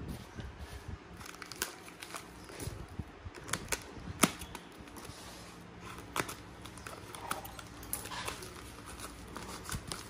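Hands unwrapping white foam packing wrap from a small cardboard box: soft rustling and crinkling with scattered sharp clicks, the sharpest about four seconds in.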